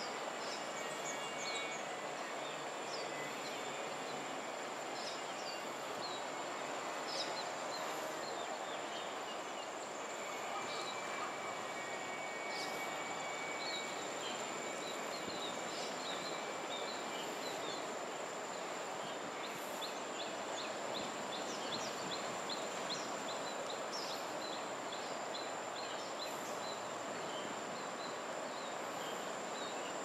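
Outdoor ambience: a steady wash of background noise under a constant high insect whine, with many short bird chirps scattered through. About twenty seconds in, a quick even run of clicking chirps lasts several seconds.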